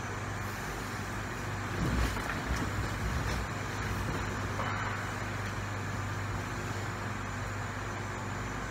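Bedding and clothes rustling as a person lies down on a bed, loudest about two to three and a half seconds in, over a steady low hum of room noise.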